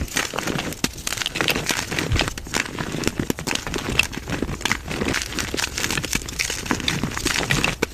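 Gym chalk being crushed: a dense, continuous run of crunching and crackling crumbles.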